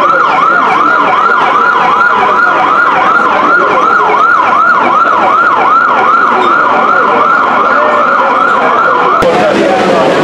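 Emergency vehicle siren in a fast yelp, its pitch rising and falling about three times a second over street noise. It cuts off suddenly near the end.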